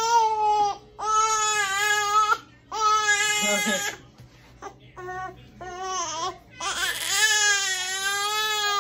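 Young infant crying: a string of high-pitched wails with short breaks between them, weaker and broken up around the middle, then one long wail near the end.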